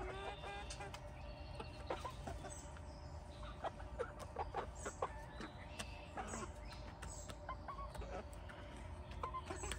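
Backyard hens clucking quietly, short scattered calls now and then, with light clicks among them.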